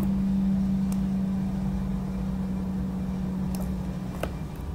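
A steady low mechanical hum, with three or four faint computer-mouse clicks.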